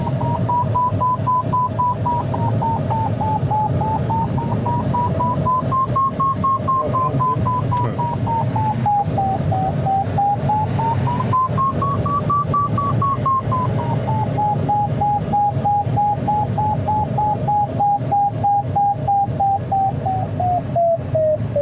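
Glider's audio variometer beeping rapidly, its pitch slowly rising and falling, highest about two-thirds of the way in and dropping near the end; the beeping tone is the sign that the ASK 21 is climbing, with higher pitch meaning stronger lift. Under it is a steady low rush of air past the cockpit.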